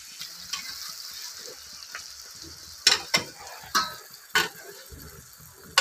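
Onions, green chillies and tomatoes sizzling in hot mustard oil in a steel kadhai, with a ladle stirring and knocking against the pan four times in the second half.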